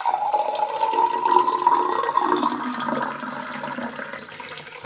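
Water running from a kitchen tap into a drinking glass, splashing as the glass fills, with a ringing tone that rises slightly in pitch. It fades toward the end.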